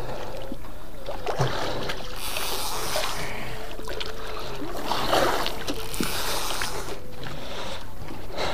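Sea water lapping and splashing against a small wooden outrigger boat's hull, with a few louder swishes and a faint steady hum underneath.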